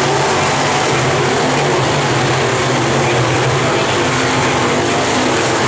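Dirt-track modified race cars running at speed around the oval, their engines a loud, steady drone.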